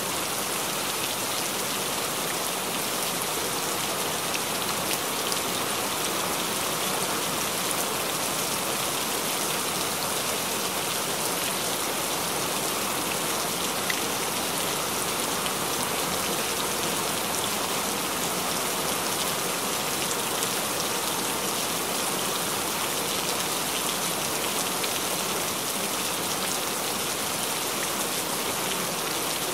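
Recorded rain: a steady, even hiss of rainfall with faint scattered drop ticks.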